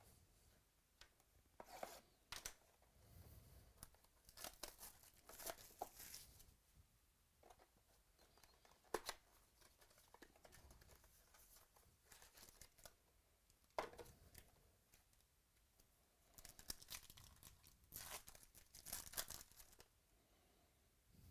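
Faint, intermittent tearing and crinkling of trading-card pack wrappers being opened and handled, with a couple of sharper clicks about nine and fourteen seconds in.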